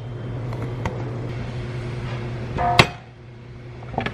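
Metal motorcycle wheel parts handled on a workbench: a few light clicks, then one loud, ringing metallic clank nearly three seconds in as the aluminum rim and star hub are set down, over a steady low hum.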